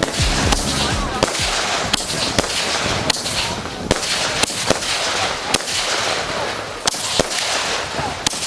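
Aerial fireworks going off: a string of sharp bangs, roughly one or two a second, over continuous crackling.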